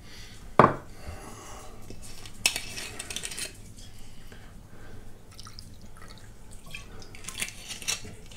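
Whiskey bottle and glass being handled: a sharp knock of glass set down about half a second in, then another knock and about a second of whiskey pouring into a glass, with smaller glass clinks near the end.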